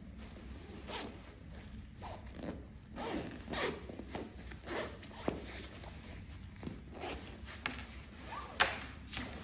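Zipper on a quilted waterproof stroller footmuff being pulled open in a series of short strokes, with a sharp click near the end.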